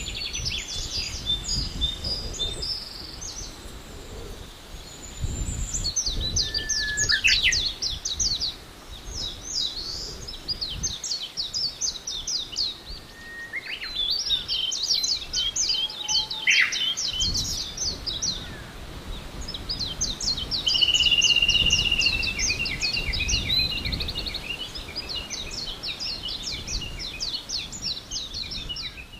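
Songbirds singing in quick trilled phrases, one after another with only short gaps, over a low rumble that rises and falls.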